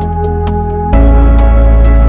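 Background music: held synth chords over light, evenly spaced ticks. About a second in, the chord changes and a deep bass comes in, louder.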